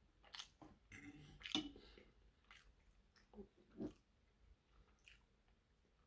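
Faint close-up chewing and biting of a mouthful of food: a few short, soft mouth noises, the loudest about a second and a half in and just before four seconds.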